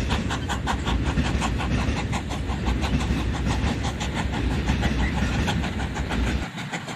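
Electric model steam trains pulling tank wagons running along the track: a rapid, even clicking of about six a second over a low rumble, the rumble falling away near the end.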